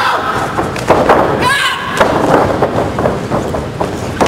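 Wrestlers' strikes and bodies landing in a wrestling ring: several sharp thuds over the seconds, with a shout about a second and a half in and voices underneath.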